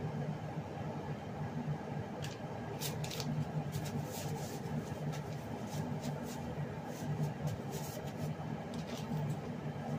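Beaten eggs cooking in a lidded frying pan on a gas stove: a steady low hum with scattered faint crackles of sizzling.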